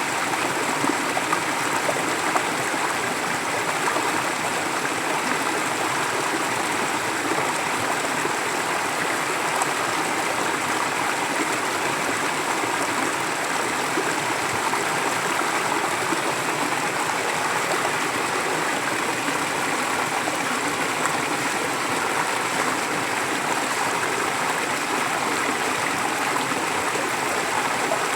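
Forest stream flowing steadily, a continuous even rush of water with light gurgling.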